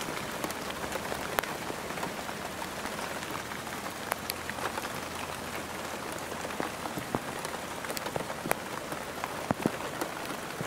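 Steady rain falling, with individual drops tapping sharply close by every so often.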